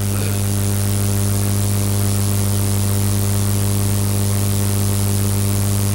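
Steady electrical mains hum with a buzzing edge from the public-address sound system, picked up by the open microphone with nobody speaking into it.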